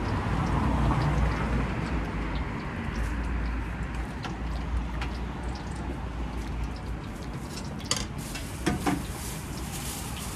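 Street food stall ambience: a steady low rumble with scattered light clinks and knocks of dishes and utensils, and a few sharper knocks near the end.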